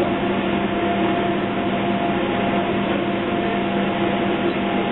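Docklands Light Railway train running along the track, heard from inside the front of the car: a steady hum with a few constant tones over the noise of the wheels on the rails.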